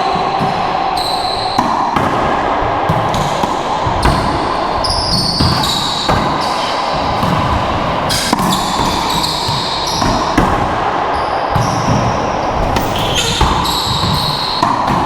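Racquetball rally: the ball is hit by racquets and bangs off the court walls again and again, with echo in the enclosed court. Short high sneaker squeaks come between the hits, over a steady hum.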